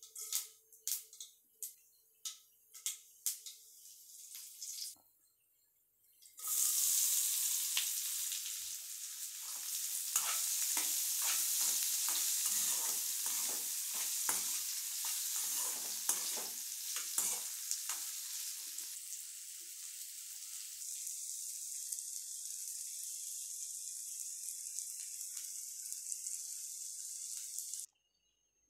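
Mustard seeds crackling and popping in hot oil in an aluminium kadai. A loud sizzle follows as chopped raw mango and green chillies hit the oil, with a spatula stirring and scraping against the pan. The frying then settles to a steady hiss that cuts off suddenly near the end.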